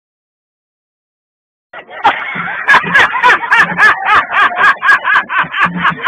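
Dead silence, then about two seconds in a man laughing hysterically in quick repeated bursts, about three a second.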